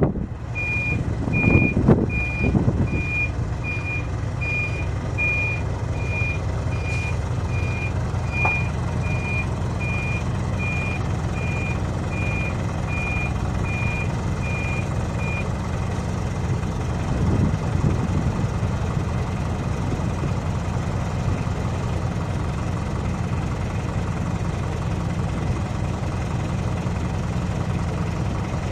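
A vehicle's reversing alarm beeping about one and a half times a second, stopping about halfway through, over a heavy engine running steadily.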